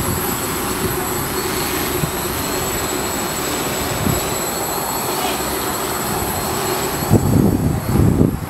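DIY quadcopter's electric motors and propellers buzzing steadily in flight. From about seven seconds in, low rumbling wind gusts on the microphone come over it.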